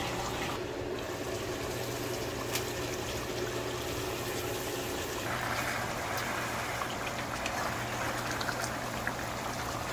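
Chicken curry boiling hard in a pan, a steady bubbling over a low steady hum. From about five seconds in the bubbling gets louder as a wooden spatula stirs through the pan.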